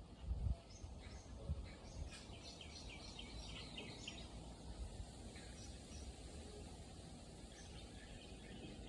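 A bird singing: a quick run of about seven repeated high chirps, with more scattered chirps later. Under it is a low outdoor rumble, with a couple of low thumps near the start.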